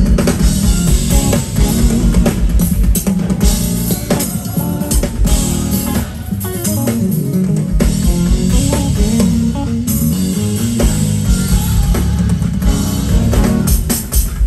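A live band plays a gospel groove on drum kit, bass guitar and electric guitar. The lowest notes drop out for a couple of seconds about six seconds in, then come back.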